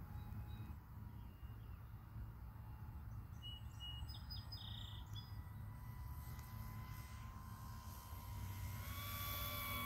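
Distant electric RC warbird in flight, its motor and propeller giving a faint thin whine that grows louder near the end as the plane comes closer. A few short bird chirps come about four seconds in, over a low steady rumble.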